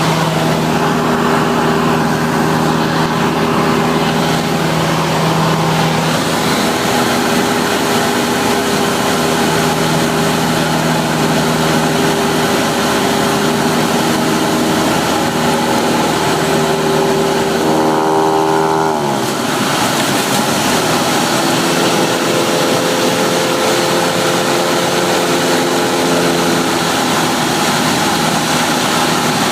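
Cessna 172's piston engine and propeller running steadily, heard from inside the cabin. About two-thirds of the way through the pitch drops quickly and settles lower as the engine speed falls.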